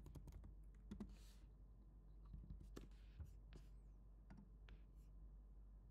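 Faint computer keyboard keystrokes, closer together in the first second or so, then a few scattered clicks.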